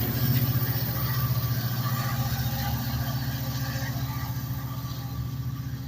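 Amtrak passenger train's diesel locomotive engine running with a low, steady, fast-pulsing drone, slowly fading.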